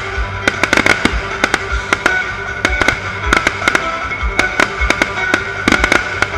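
Fireworks display: aerial shells and crackers going off in quick succession, many sharp bangs a second, over music with a steady low beat.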